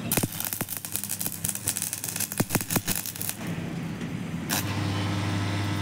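Stick (arc) welding with a coated electrode on a steel frame: the arc crackles and spits with sharp pops for about three seconds, then breaks off. A steady low hum carries on after it.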